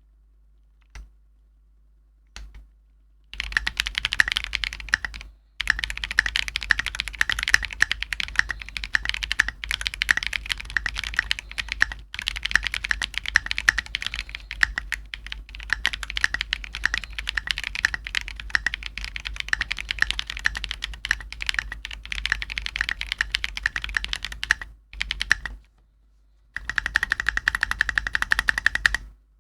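Fast typing on a KBD8X MKIII mechanical keyboard with Gateron Quinn tactile switches: a dense, rapid run of key clacks. It opens with two single keypresses and pauses briefly a few times.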